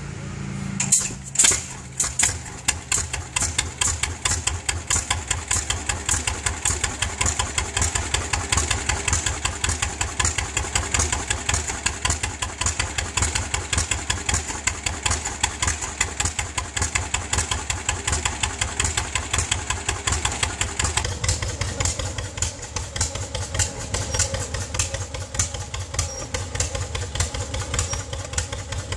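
Antique John Deere two-cylinder tractor engine being hand-started at the flywheel: it catches about a second in and settles into the steady, even popping of a two-cylinder engine running.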